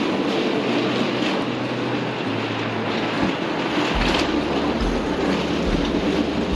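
Hard-shell suitcase wheels rolling over a walkway floor: a steady rumbling clatter, with low bass notes running underneath.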